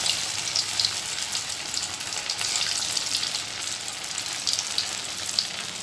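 Potato snack deep-frying in hot oil in a steel kadai on high flame: a steady sizzle with scattered crackling pops.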